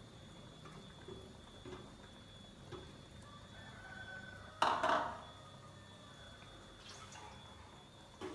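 White sauce simmering in a wok, with faint bubbling and small pops. About halfway through comes one brief, louder burst of noise.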